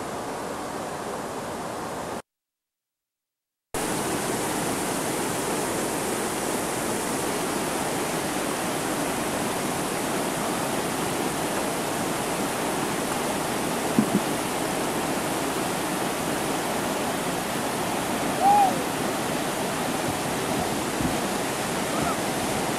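Whitewater rapids rushing steadily, a constant roar of water over rock ledges. The sound cuts out for about a second and a half about two seconds in, then resumes, with a single sharp knock about two thirds of the way through and a brief high call a few seconds later.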